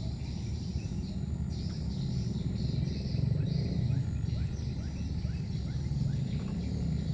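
Outdoor ambience: a steady low rumble under a high hiss, with a run of faint short falling chirps, about two a second, through the middle.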